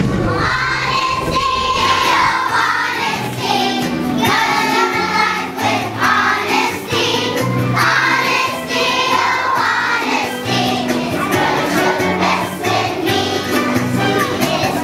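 A group of kindergarten children singing a song together over a musical accompaniment with a steady beat.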